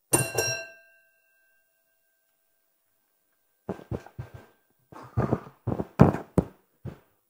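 A single sharp metallic strike that rings and fades over about a second. From about halfway in come scattered knocks and thumps as people sit back down on wooden benches and desks.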